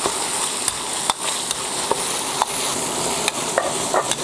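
Diced pork sizzling in a wok of hot rendered pork fat, stir-fried with a metal ladle. The ladle clicks and scrapes against the wok several times over a steady hiss.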